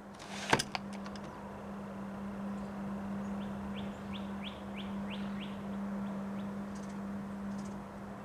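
A bird chirps a quick run of about eight short rising notes in the middle, over a steady low hum and a background hiss. A sharp click comes about half a second in.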